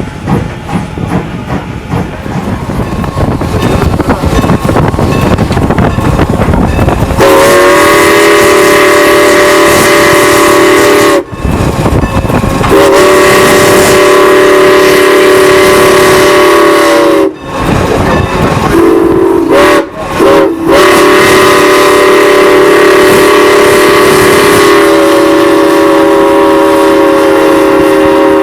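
Steam locomotive working past with a deep running rumble, then its chime whistle sounding long, long, short, long: the signal for a grade crossing ahead.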